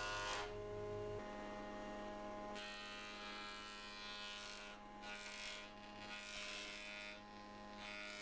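Electric planer-jointer running with a steady motor whine, while its cutterhead shaves a thick softwood scaffold board. The rougher cutting noise comes and goes as the board is fed across the knives.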